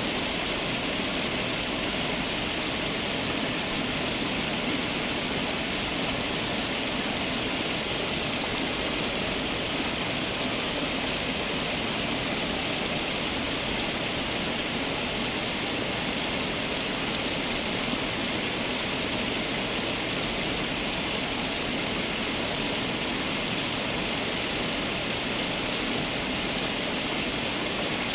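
Fountain water falling and splashing in a steady, unbroken rush.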